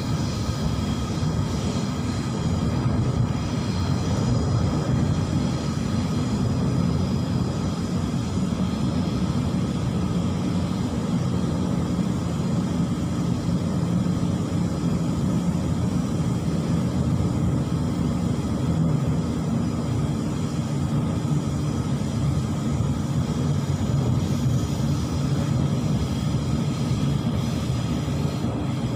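Sydney suburban electric train in motion, heard from inside the carriage: a steady rumble of wheels on the track with a steady electric whine from the traction motors over it.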